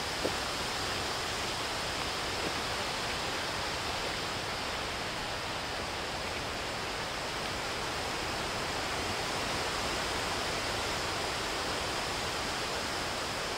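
Steady wind blowing through the forest trees, an even hiss with no clear rise or fall.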